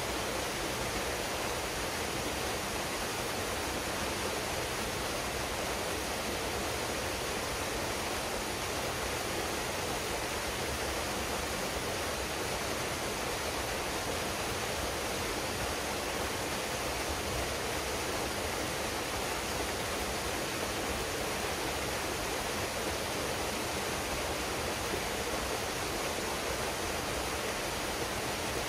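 Waterfall pouring steadily into a pool: an even, unbroken noise of falling water.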